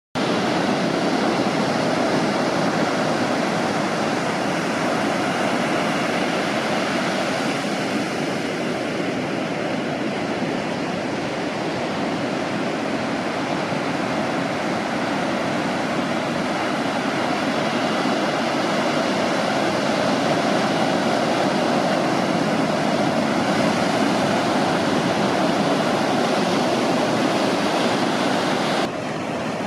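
Ocean surf: a steady wash of breaking waves and whitewater, swelling and easing slowly, dropping suddenly in level near the end.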